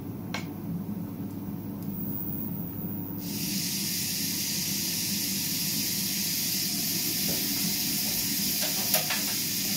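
Chopped vegetarian chorizo-style sausage pieces frying in an oiled frying pan on an induction hob. A few light knocks come as the pieces are scraped into the pan, then a steady sizzle starts suddenly about three seconds in over a low hum, with a single click near the end.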